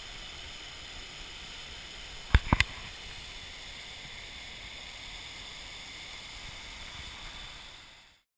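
Steady rush of water pouring over a partly frozen waterfall on the Elbow River, with three sharp knocks close together about two and a half seconds in. The sound fades out near the end.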